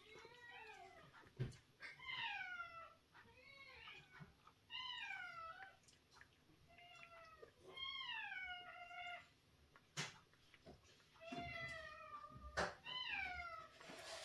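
A cat meowing over and over: about eight meows, each one falling in pitch, with a few sharp clicks between them.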